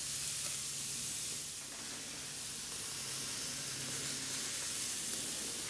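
Steady sizzling hiss of chicken and sliced onions on a hot cast-iron sizzler platter.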